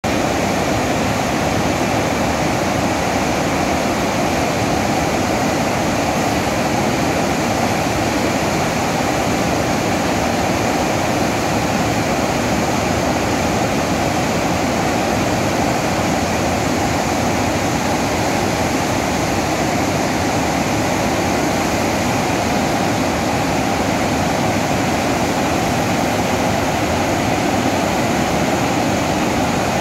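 Water pouring through the open spillway gates of a large dam and crashing into the river below: a loud, steady rush of white water.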